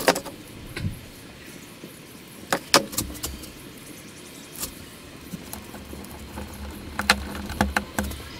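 Scattered sharp clicks and taps from small hardware being handled, with a screwdriver working at a plastic wall switch plate. There is a pair of clicks a few seconds in and a quick cluster near the end.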